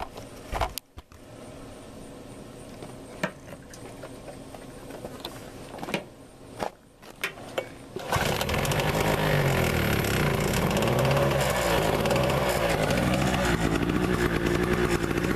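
PowerPro 1000-watt two-stroke portable generator: a few clicks and knocks while it is readied, then about eight seconds in the engine starts and runs loud with an uneven, wavering pitch. Before it starts, the quiet steady hum of a running Honda EU2000i inverter generator is heard.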